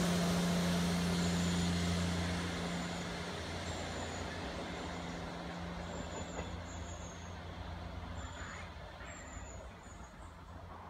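South Western Railway Class 158 diesel multiple unit pulling away, its diesel engines giving a steady low drone that fades gradually as the train recedes.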